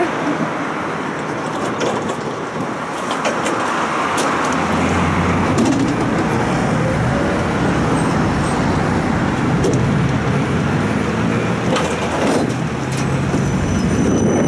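Road traffic passing on a busy street beside a tram stop, over a steady low hum, with scattered light clicks.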